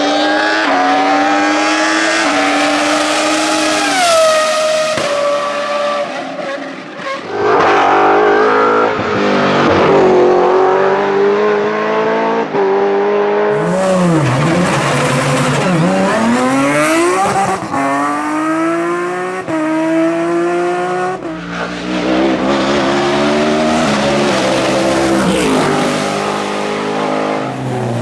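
Race car engines at full throttle, one car after another, each revving up hard with its pitch climbing and then dropping sharply at every gear change.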